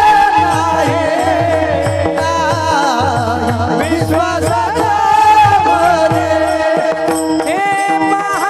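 Devotional Marathi bhajan singing: a voice holding and ornamenting long, wavering notes without clear words, over sustained instrumental tones and a steady low drum beat.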